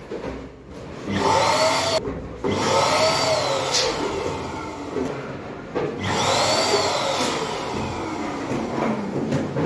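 Electric balloon pump running while inflating balloons, in three runs with abrupt breaks between them. In each run its whine rises quickly and then sinks slowly.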